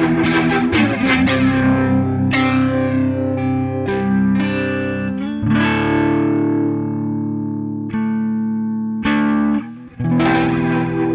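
Electric guitar played through a Strymon Lex rotary speaker simulator pedal, with some overdrive and a swirling Leslie-style modulation. Sustained chords ring and change every second or two, with a short break near the end.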